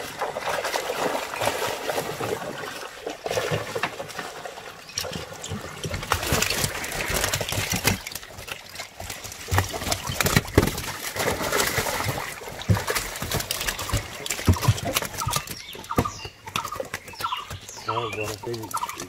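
Fish thrashing in a cast net as it is hauled out of the water onto a wooden boat deck: splashing water and many quick wet slaps of flapping fish.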